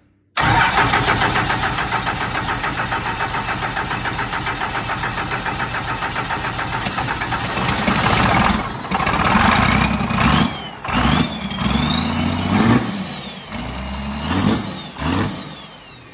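A 12-valve Cummins 5.9-litre inline-six turbodiesel cranks on the starter with an even pulsing for about seven seconds, on its first start after the fuel system was bled of air. It catches, runs unevenly, and is revved up and back down several times before falling away near the end.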